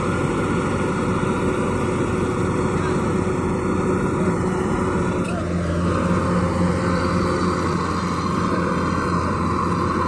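Rice combine harvester's engine and threshing machinery running steadily, a continuous mechanical drone that grows a little fuller in the low end about halfway through.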